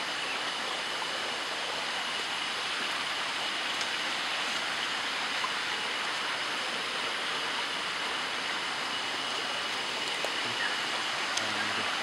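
Steady rushing of flowing water, even and unbroken, with a thin steady high tone running above it.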